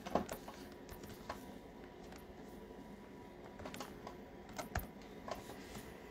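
Acer laptop keys being pressed: faint, scattered, irregular clicks, a few at a time rather than a steady typing rhythm.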